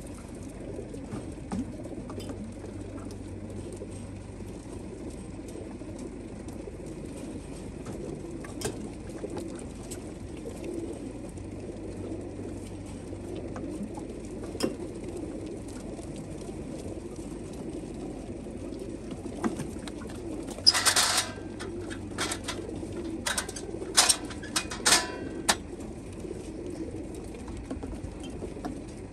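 Many racing pigeons cooing in the crates of a pigeon transport trailer, a continuous low murmur. From about two-thirds of the way in come a series of sharp knocks, the loudest sounds here, as a plastic watering can bumps the crates' metal drinkers.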